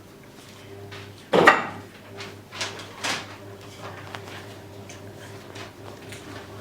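A sudden loud knock about a second in, followed by two lighter knocks, over a steady low electrical hum.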